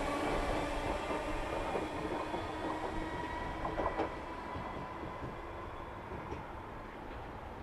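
Merseyrail electric multiple unit pulling away, its motor whine and running noise fading steadily as it recedes. A few clicks of wheels over the rail joints come about four seconds in.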